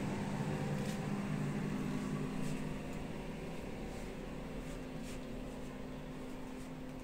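Steady hum of a bathroom ventilation fan with a few low tones, growing quieter from about three seconds in.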